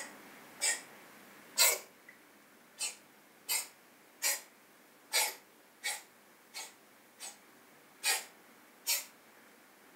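Calico cat giving a rapid series of short, sharp sneeze-like snorts, about one every three-quarters of a second, a dozen or so in a row.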